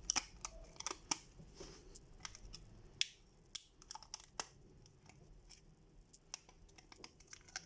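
Plastic protective wrap being picked at and peeled off a new smartphone by fingers: faint, irregular small clicks and crinkles, busier in the first three seconds and sparser after.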